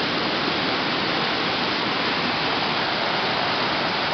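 Waterfall whitewater rushing over rock, a steady, loud, unbroken rush.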